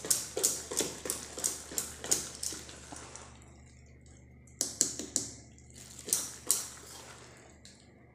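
Wire whisk beating a thick wheat-flour and semolina batter in a metal pot, clicking about three strokes a second. The strokes stop for a moment a few seconds in, then pick up again.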